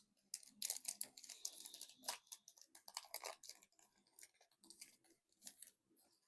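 Foil booster-pack wrapper crinkling and tearing as it is worked open by hand: a run of irregular crackles and crunches, loudest about a second in, then more scattered.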